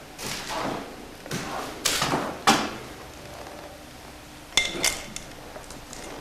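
Knocks and scrapes from handling tools and building materials during renovation work, followed by a couple of sharp clinks with a brief metallic ring about four and a half seconds in.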